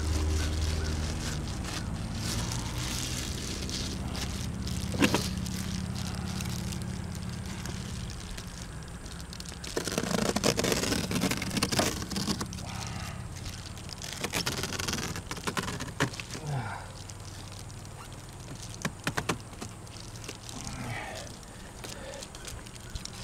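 Foil-faced roof insulation crinkling and rustling as it is pressed and smoothed by hand along a metal roof edge, with scattered clicks and taps. Over the first several seconds a low engine hum sinks in pitch and fades away.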